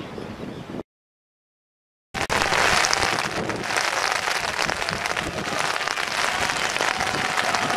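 Brief wind noise on the microphone, cut off by a second of dead silence at an edit, then steady applause from a crowd of spectators starting about two seconds in.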